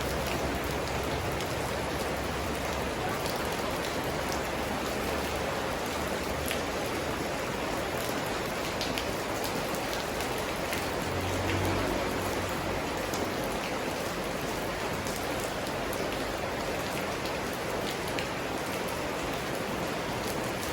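Steady rain falling, a continuous hiss with scattered individual drops ticking through it.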